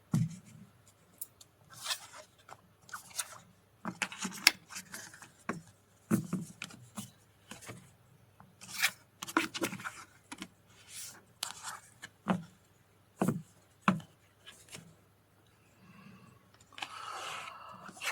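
Tarot cards being handled: paper cards rubbing and sliding against each other, with many sharp snaps and taps at irregular intervals.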